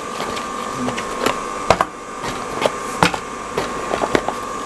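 Irregular light clicks and knocks, like small objects being handled, over a steady high hum.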